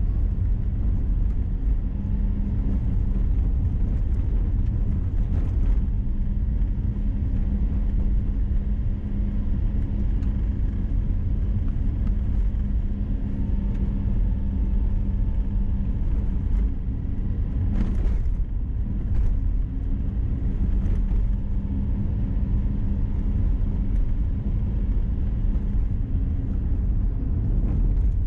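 Car driving along a road: a steady low rumble of engine and tyres with a constant hum, and a brief click about eighteen seconds in.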